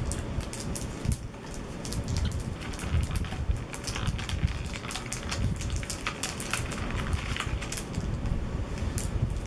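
Small candy wrappers crinkling as taffy and gum pieces are unwrapped by hand: a dense, irregular run of small crackles.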